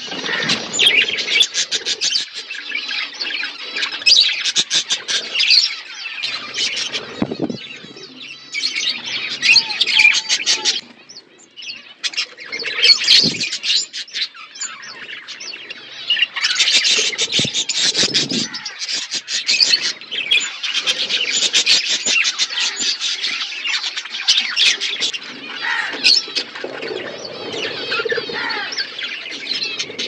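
A flock of budgerigars chattering and warbling, many quick chirps overlapping without a break except for a short, quieter spell about eleven seconds in.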